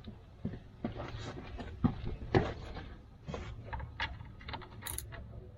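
Irregular clicks and knocks of hand tools being handled and set against the vehicle, over a low steady hum, with the sharpest knocks about two seconds in.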